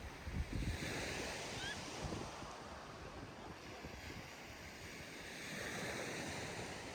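Surf washing onto a sandy beach, two waves breaking about four to five seconds apart, with wind buffeting the microphone in the first second.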